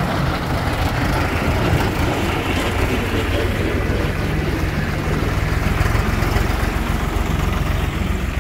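Tractor-driven forage harvester cutting standing maize for silage: a steady low tractor-engine hum under a dense, continuous noise of the machine at work.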